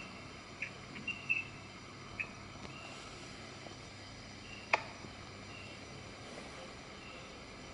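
Faint, short, high-pitched chirps at irregular gaps of about a second over a low steady hiss, with a single sharp click about four and a half seconds in.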